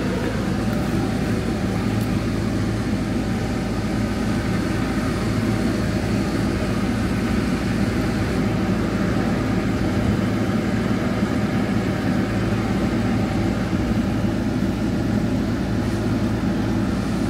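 A heavy truck's diesel engine idling steadily, an even low hum with no change.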